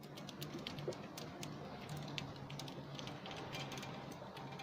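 Fishing reel drag clicking irregularly as a hooked shark runs and pulls line off. Under it is the steady low hum of the boat's engine.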